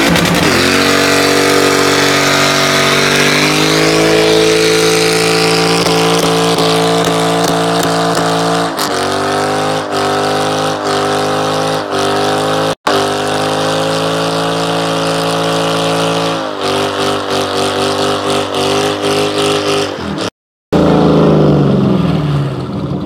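Car engine revved hard during a burnout and held at high revs, with the rear tyres spinning and screeching under it. Late on the revs stutter in quick repeated breaks, the sound cuts out for a moment, and then the revs fall away.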